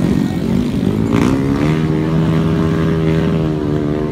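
Dirt bike engines revving high while bogged in deep mud, the pitch rising and falling through the first second or so, then one engine holding a steady high rev.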